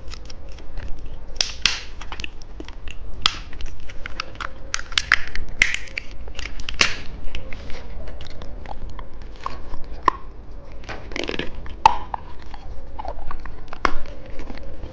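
Close-miked crunching and chewing of hard candy, a lollipop being bitten, with many irregular sharp crunches.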